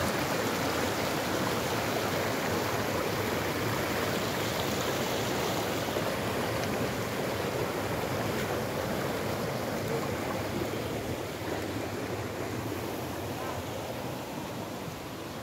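Mountain stream running fast over rocks: a steady wash of water, growing fainter near the end.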